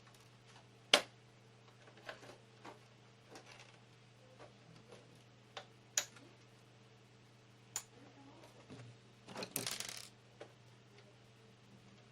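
Sharp plastic clicks and knocks from working on a monitor's plastic housing while it is pried apart, with a loud snap about a second in, another about six seconds in, and a brief scraping, rattling stretch near the end.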